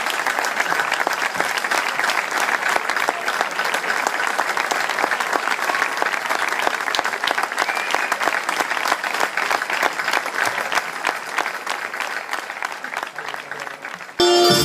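Audience and band members applauding, dense steady clapping that thins out near the end. Just before the end the band strikes up abruptly.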